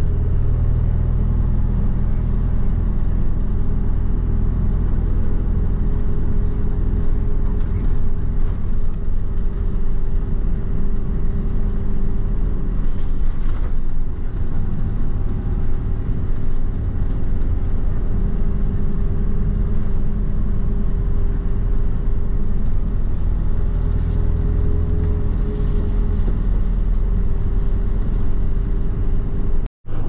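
Steady engine and road rumble heard from inside a moving road vehicle, with a constant low hum. The sound cuts out for an instant near the end.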